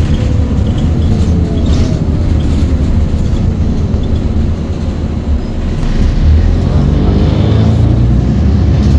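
Bredamenarinibus M240LS city bus heard from inside the passenger cabin, its engine and drivetrain running with a steady low hum. A fainter whine falls in pitch over the first few seconds, then climbs again and grows louder from about six seconds in as the bus accelerates.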